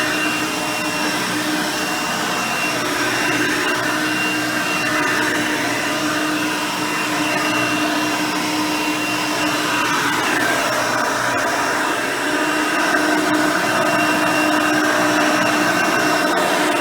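Hoover Elite 350 upright vacuum cleaner, with its 5 amp motor and original 9-blade fan, running steadily while vacuuming. Its tone shifts slightly about ten seconds in.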